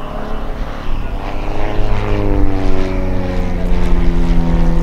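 A propeller airplane's piston engine drones loudly as it flies past. About two seconds in, its note slides down in pitch, then holds steady.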